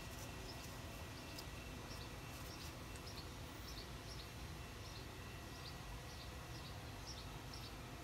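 Faint outdoor ambience: birds chirping now and then over a low steady rumble, with a faint steady high whine.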